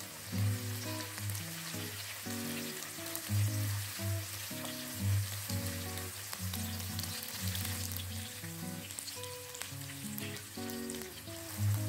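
Sliced leek, garlic and chilies sizzling in hot oil in a nonstick wok as they are stir-fried with a silicone spatula. Background music with a plodding bass line plays over it, its low notes the loudest part.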